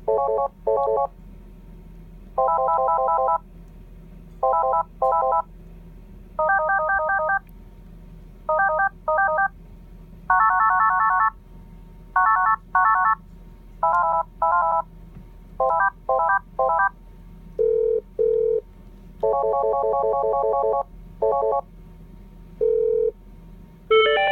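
Polycom SoundPoint IP 550 desk phone playing its built-in ringtones one after another: short electronic ring bursts in single, double and triple patterns at changing pitches, each separated by a pause of about a second.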